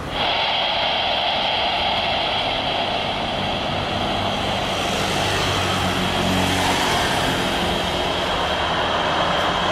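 Jet engine noise from a Boeing 787 Dreamliner on its landing rollout: a steady rush with a high whine, swelling slightly a little past halfway.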